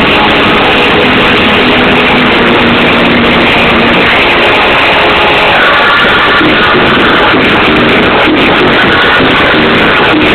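House music from a DJ set played over a club sound system, very loud and at a steady level. A higher synth line comes in about halfway through.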